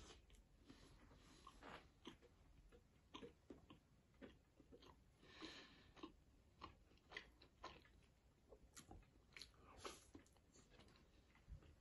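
Faint close-up chewing of a soft olive-filled pastry: scattered small wet mouth clicks and smacks, with a soft breath through the nose about midway.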